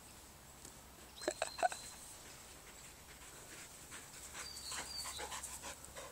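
Border collie panting, with a few short high whines about a second and a half in, then a run of quick, rhythmic panting.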